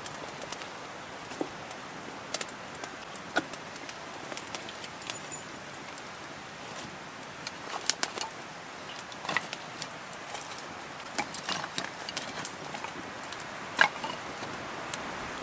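Wood campfire crackling, with irregular sharp snaps and pops over a steady hiss; one loud pop near the end.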